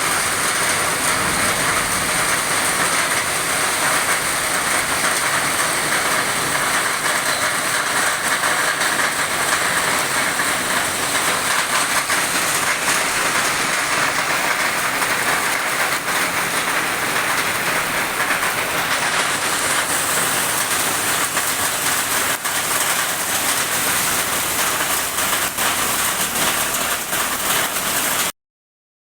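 Heavy rain pouring down steadily, a dense hiss of drops on surfaces. The sound cuts off suddenly near the end.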